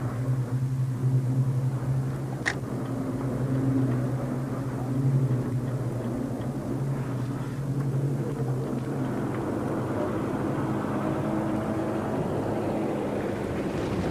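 Engines of old aircraft droning overhead, a low steady hum that fades away after about nine seconds, leaving a hiss of wind and water. A single sharp click about two and a half seconds in.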